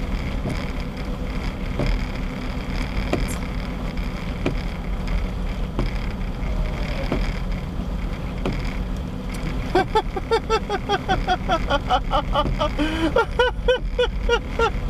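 Steady road and engine noise inside a car driving on a wet road in rain. About two-thirds of the way through, a fast run of short pitched chirps, three or four a second, joins it, along with a few clicks.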